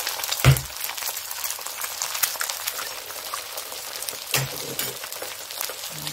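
Eggs frying in hot oil in a non-stick frying pan, a steady crackling sizzle. A sharp knock comes about half a second in, and a smaller one near the end, as a second egg is cracked and added to the pan.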